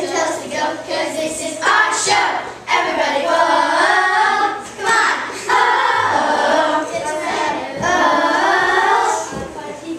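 A group of young girls singing together in several long, drawn-out phrases, with short breaks between them.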